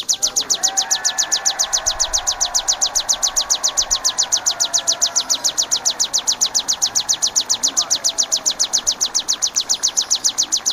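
Ciblek (bar-winged prinia) singing a long, even run of rapid high repeated notes, about seven a second. Fainter, lower whistling notes overlap it in the first half.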